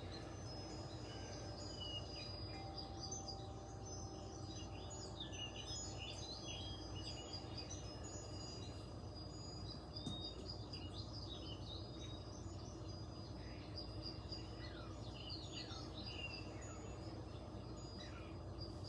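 Faint birds chirping over a steady low hum, with one light tap of a hand on the belly about halfway through.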